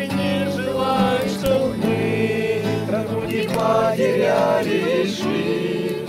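A small group of men, women and children singing a Russian Christian song together, accompanied by strummed acoustic guitars.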